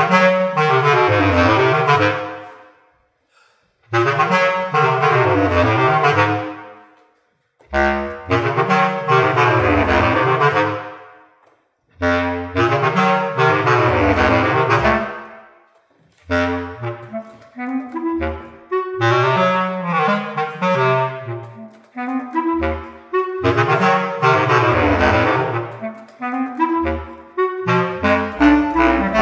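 Two bass clarinets playing a duet: fast, rippling figures in the low register, in phrases of a few seconds, each followed by a short break in which the sound dies away in a reverberant space. In the second half the notes turn shorter and more detached.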